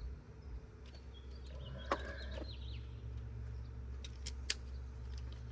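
Hand tools being handled: one sharp click about two seconds in and a few lighter clicks near the end, over a low steady hum, with faint bird chirps in the background.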